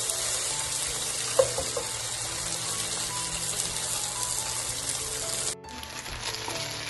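Chicken pieces frying in hot oil in a pan, a steady sizzle, with one sharp knock about one and a half seconds in. Near the end the sizzle cuts off suddenly and comes back quieter and duller.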